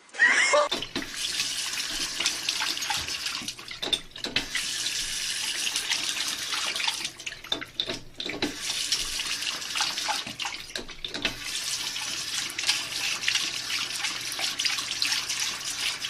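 Water running from a tap, a steady splashing hiss that dips briefly twice, with a short squeaky rising sound right at the start.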